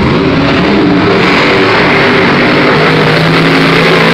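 Monster truck engines revving hard in a head-to-head race, loud and continuous, their pitch going up and down with the throttle.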